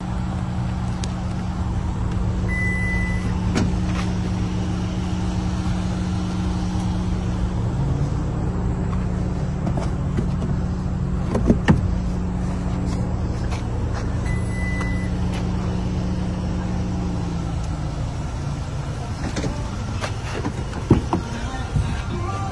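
Toyota Tacoma pickup's engine idling steadily, its hum dropping slightly in pitch twice. Two short high beeps sound, well apart, and a few sharp knocks come near the middle and near the end.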